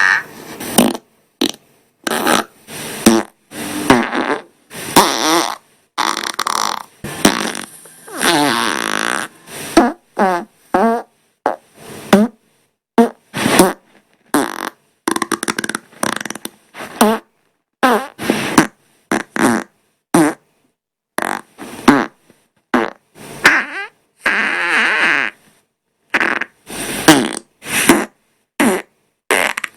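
Dozens of human farts edited back to back, mostly short blasts with a few longer drawn-out ones, some buzzy and pitched, some rasping, each cut off sharply before the next.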